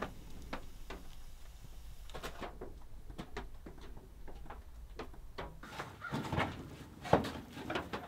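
Wood fire crackling in a cast-iron wood stove, with irregular sharp pops over a low steady rumble. About six seconds in this gives way to rustling and handling as someone moves about, with one sharp knock a little after seven seconds.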